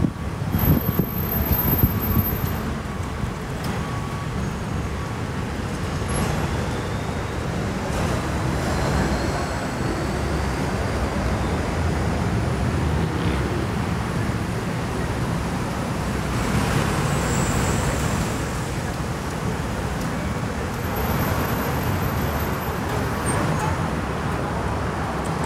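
Steady city road traffic noise from passing cars, swelling as vehicles go by about a third of the way in and again past the middle.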